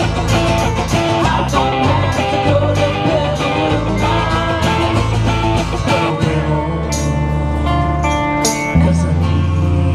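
Live band playing a song: strummed acoustic guitar and electric guitar over a bass line, with singing. About six and a half seconds in, the strumming rhythm gives way to long held bass notes and chords.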